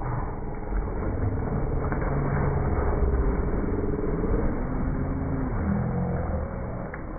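A motor running with a steady low rumble, its pitch rising and falling.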